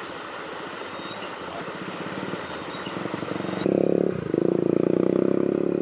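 A small engine running with a steady, finely pulsing buzz; it cuts in loudly about three and a half seconds in, over steady outdoor background hiss.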